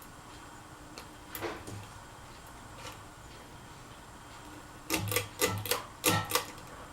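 Casablanca Four Seasons III ceiling fan running with a faint steady hum. A single click comes about a second and a half in, and a quick run of about eight sharp clicks and knocks comes near the end.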